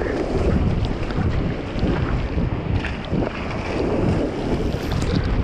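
Whitewater rushing and spraying around a surf kayak as it rides a breaking wave, with heavy wind noise buffeting the microphone.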